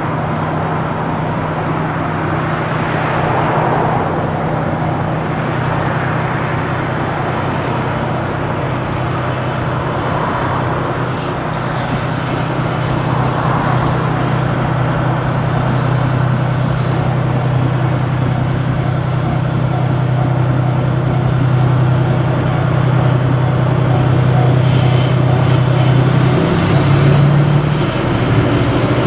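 Train running, with a steady low engine drone that shifts up in pitch near the end.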